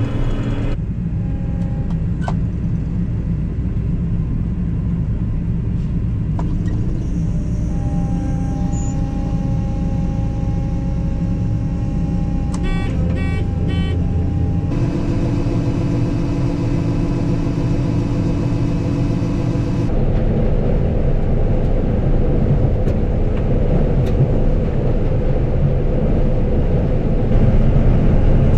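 Combine harvester running in a corn field: a steady engine and threshing drone with steady tones on top, getting a little louder after about twenty seconds and again near the end.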